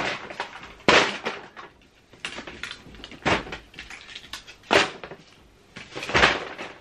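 Household items being handled and set down among bags of clutter: about five short clunks and rustles, roughly a second apart.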